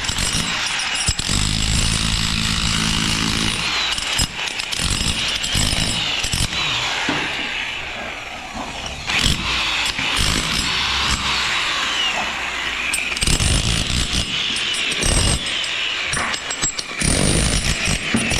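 Construction site work noise: power tools and machinery running with irregular knocks and clatter.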